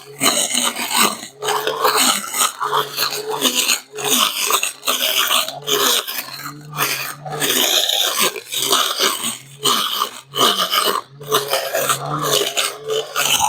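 Cordless battery brush cutter running in short, uneven bursts as it cuts grass: a rough, fluctuating motor hum with line-whipping noise, dropping out briefly many times.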